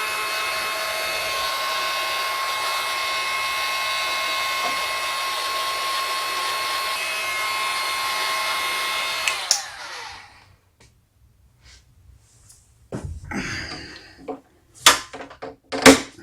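Electric hot-air blower running steadily with a whine, heating cold plastic to soften it and spread it wider. It switches off about nine and a half seconds in and winds down, and a few sharp clicks and knocks follow near the end.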